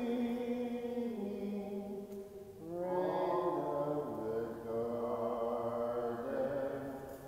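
Slow sung liturgical chant: long held notes in phrases, breaking off briefly about two and a half seconds in and again at the end.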